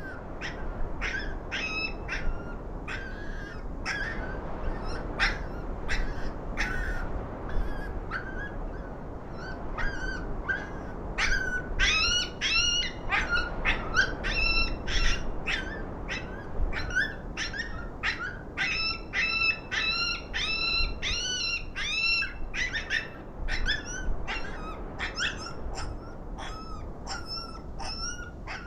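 Electronic predator call playing coyote pup distress sounds: a long run of short, high yips and whines, several a second, over the steady rumble of strong wind on the microphone.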